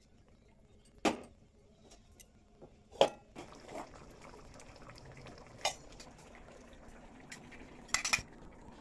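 Steel kitchen utensils clanking: a steel ladle knocking against a steel kadai and a steel container being handled. There are a handful of sharp clanks spread out, the loudest about three seconds in and a quick double clank near the end.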